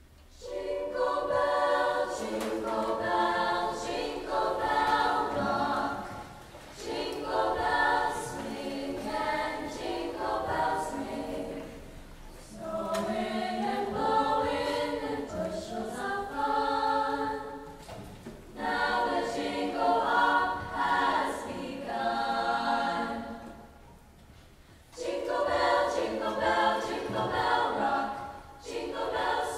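Choir singing unaccompanied, in phrases a few seconds long with short pauses between them.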